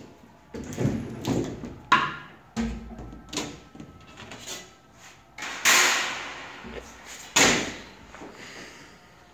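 Thin sheet-metal signs and a wire drying rack being handled: a run of sharp metallic knocks and clatters, then two louder, longer scrapes in the second half.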